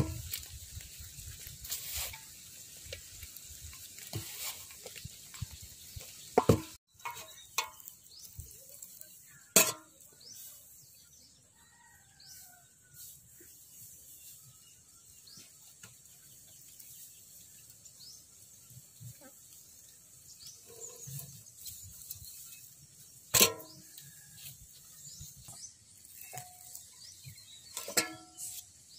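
Sparse, quiet handling sounds from filling a whole coconut through its eye: light rustling of grain, then a few sharp taps and clicks spread out over the stretch.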